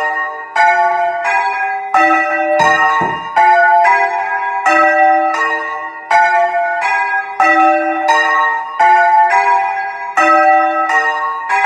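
Several church bells rung full-circle by hand on ropes, their strokes following each other about three every two seconds at changing pitches, each note ringing on into the next. A dull low thump about three seconds in.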